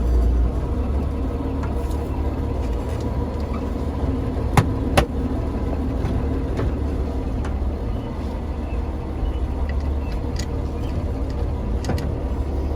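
1956 Dodge Town Panel truck's engine running with a steady low rumble, heard from inside the cab during a clutch test after a pedal adjustment. Two sharp clicks, half a second apart, come a little before the middle.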